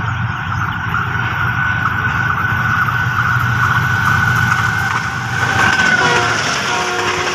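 Diesel locomotive horn held in one long high note as the train approaches at speed. Its pitch drops about six seconds in as the locomotive passes close by, over the rumble of the locomotive's engine and the passing coaches.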